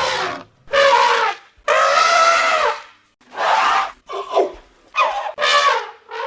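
Elephant trumpeting: a run of about seven short calls, each a single pitched blast, several falling in pitch at the end, with brief silent gaps between them.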